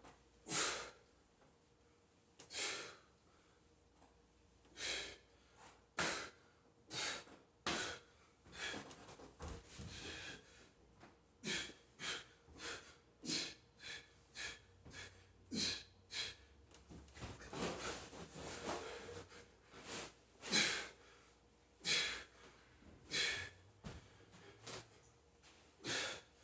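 A man's heavy breathing under exertion during a burpee and sandbag workout: sharp, forceful exhales roughly once a second, coming closer together in the middle.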